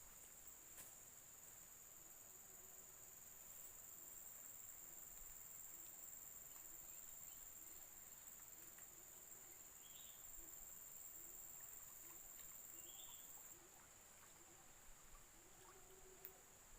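Faint steady high-pitched insect chorus in two pitches; the higher one stops about two-thirds of the way through while the lower carries on.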